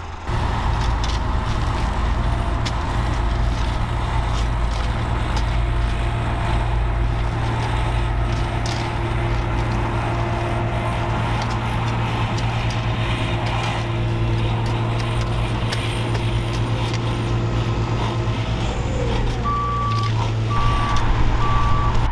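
Diesel engine of a tracked site dumper running steadily, with spades scraping into a heap of soil. Three short reversing beeps sound near the end.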